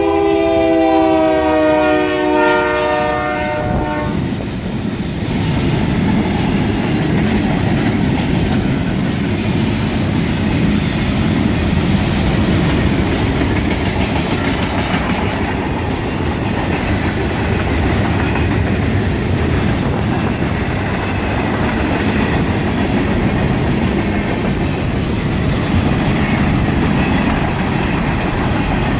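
CSX freight train with a multi-locomotive lashup passing. A locomotive's multi-chime air horn sounds for the first four seconds or so, its pitch sinking slightly. The steady rumble and clatter of the locomotives and cars rolling by follows.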